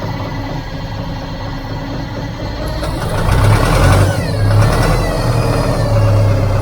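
John Deere 410 backhoe's diesel engine running after a jump-start on a bitterly cold morning, getting louder about three seconds in.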